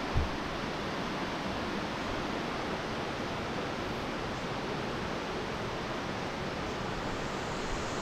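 Steady rushing of a waterfall, even and unbroken, with a single low thump just after the start.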